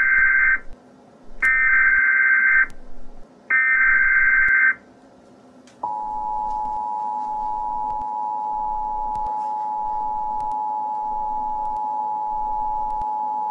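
Emergency Alert System header: three bursts of digital data tones, about a second each. The steady two-tone attention signal follows, starting about six seconds in, which opens an emergency alert broadcast.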